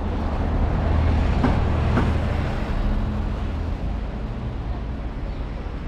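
A motor vehicle passing close by: a low engine hum and road noise that build over the first couple of seconds, then fade away.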